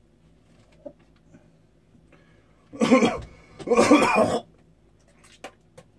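A man coughing twice, the second cough longer than the first, with a few faint clicks around them.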